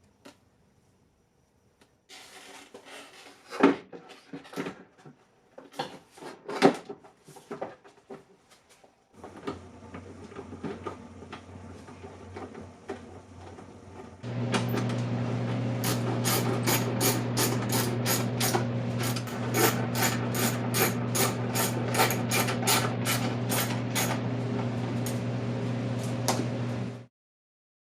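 Clicks and plastic-and-metal handling of a tail-light bulb socket and housing. Then a faint steady hum, and from about halfway a louder steady hum of the Honda Pilot's V6 engine idling, with regular ticking about twice a second, cutting off abruptly near the end.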